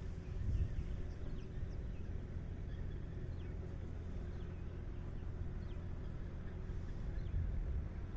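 A compact farm tractor's engine idling steadily while the tractor stands still with its rotary tiller attached. Faint bird chirps come and go over it.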